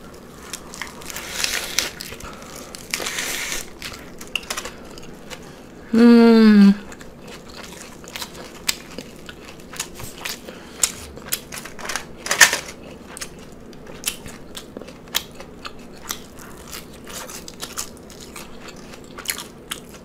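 Wet, crunchy chewing of a lettuce-wrapped cheeseburger slider, picked up very close to the mouth, with many sharp crackling clicks from the lettuce. A short hummed "mmm" with falling pitch about six seconds in.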